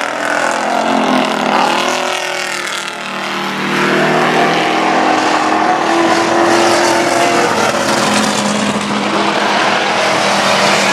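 Engines of racing pickup trucks revving and easing as the trucks go by on the track. The sound is loud and continuous, with the engine pitch rising and falling in the first few seconds.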